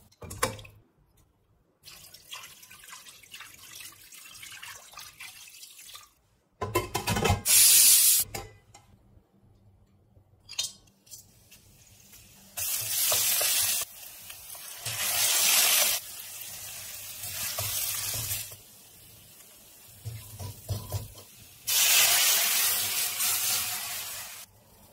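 A string of separate cooking sounds from a stainless steel pan, each lasting a second or two. Near the end, chicken stock is poured in from a pot with a running, splashing sound.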